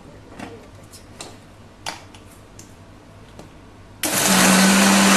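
A few light clicks and knocks as the steel jar is fitted onto an electric mixer grinder. About four seconds in, the mixer grinder switches on and runs loud and steady with a low hum, grinding boiled chana dal into a paste.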